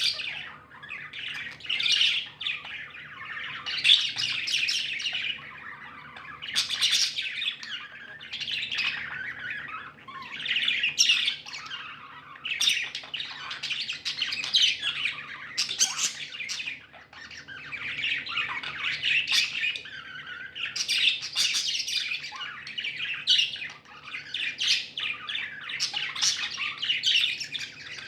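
Several pet budgerigars chirping and chattering over one another, the calls coming in overlapping bursts without a break.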